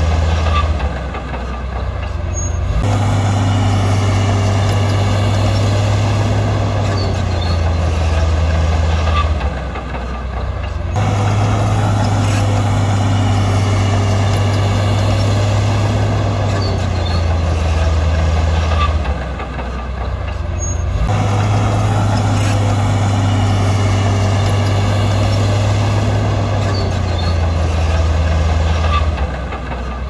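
Heavy construction machine's diesel engine working under load, easing off briefly about every ten seconds and then pulling again, in a cycle that repeats the same way each time.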